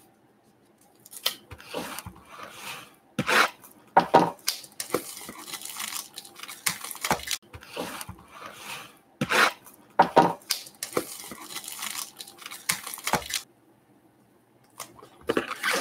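Baseball card packs and cards being handled: wrapper tearing and crinkling, cards sliding and tapping against each other, in irregular bursts with a short pause near the end.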